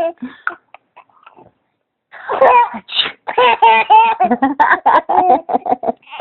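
A faked sneeze about two seconds in, ending in a sharp hissing "choo". Then laughing in quick repeated bursts, a reaction to the sneeze.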